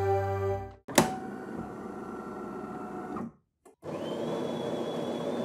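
Intro music ends, then a sharp click about a second in and a steady mechanical whir. After a short silence the whir starts again with a thin, high, steady whine over it.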